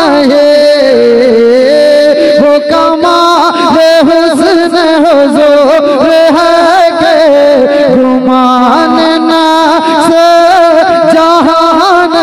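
A man singing a naat, an Urdu devotional poem, into a stage microphone with no instruments, drawing out long wavering notes and ornamented runs.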